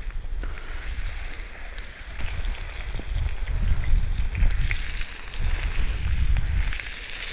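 Flour-dredged crucian carp sizzling in hot oil as it is laid into a cast-iron sadj pan: a steady frying hiss.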